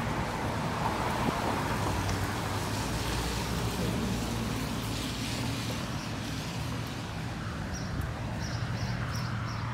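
Steady city street traffic noise, with a low engine hum from cars on the road.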